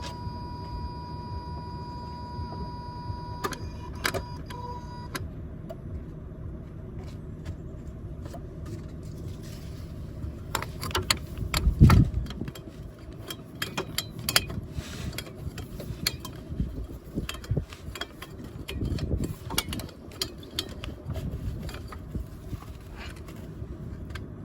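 A steady electronic warning tone from the car's dash, which cuts off after about five seconds, then scattered clicks and knocks of handling, with one heavier thump about halfway.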